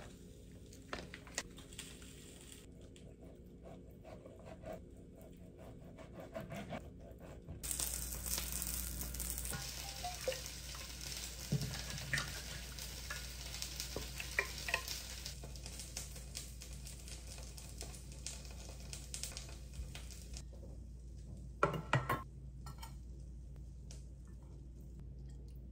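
Home kitchen cooking sounds: a steady sizzling hiss with scattered clinks of utensils through the middle, and a few sharp clinks of a spoon against a stainless-steel bowl near the end.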